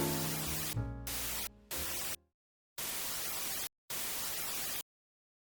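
Piano background music dies away under bursts of white-noise static that switch on and off abruptly four times, then cut to dead silence.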